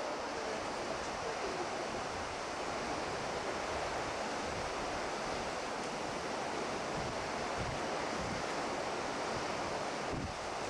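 Steady rushing roar of a waterfall, with wind buffeting the microphone as an irregular low rumble.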